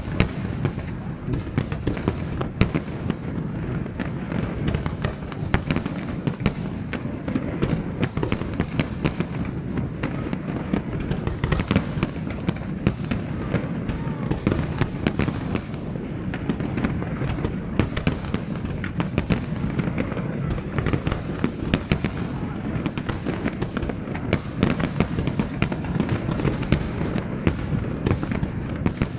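Aerial fireworks display at full intensity: shell bursts, bangs and crackle follow one another in quick, overlapping succession without a break.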